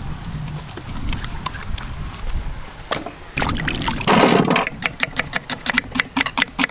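Hands working chicken pieces through wet masala paste, then water splashing over tomatoes and onions for about a second, starting about three and a half seconds in. A knife then chops quickly through onion onto a wooden board, about five chops a second.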